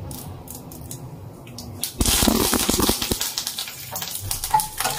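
Hot oil with mustard seeds in a wok sizzling faintly, then crackling and spattering loudly about two seconds in as fresh curry leaves hit the oil.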